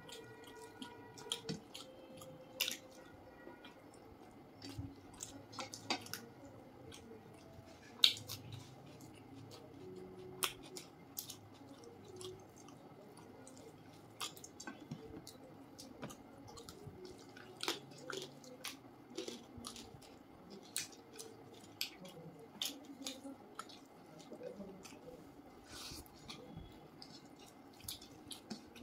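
Eating by hand: wet squishing of rice and curry being mixed with the fingers on plates, and chewing, with many scattered short sharp clicks and smacks. The loudest click comes about eight seconds in.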